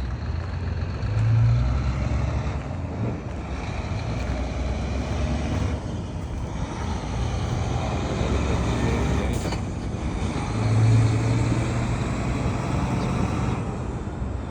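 Road traffic running steadily as a low rumble, with vehicles passing close and louder about a second and a half in and again around eleven seconds.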